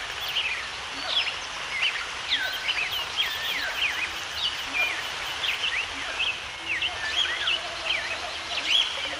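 Many small birds chirping and calling at once, quick rising and falling notes overlapping without a break, over a steady background hiss.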